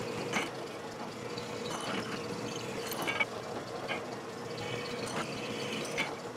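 Drill press running steadily with an even hum while its bit cuts through steel square tubing, with several short metallic clicks and clinks as the tubing shifts on the iron table.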